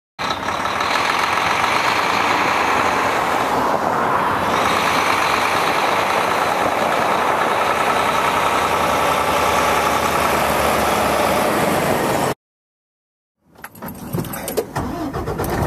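Steady heavy truck engine and road noise that cuts off abruptly about three-quarters of the way through. After a second of silence comes a shorter, choppier stretch of knocks and rattles.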